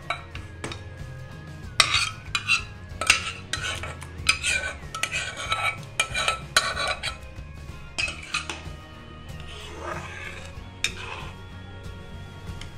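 A metal spoon scraping and knocking against a pot and a metal kadhai as mashed boiled carrots are scraped into hot milk and stirred in, with repeated clinks and scrapes that come thickest in the first half.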